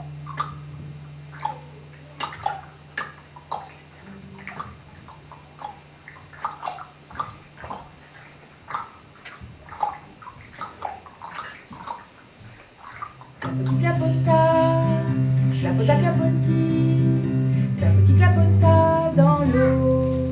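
An acoustic guitar chord rings and fades, followed by about ten seconds of short, soft clicks and plinks at an irregular pace. About thirteen seconds in, the acoustic guitar starts strumming chords loudly and steadily.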